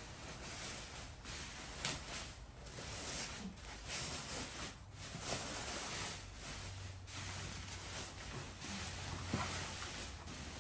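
Fabric rustling and swishing as the filled inner bag of a Fatboy bean bag is pulled out of its cover, in irregular swells, with a few light knocks.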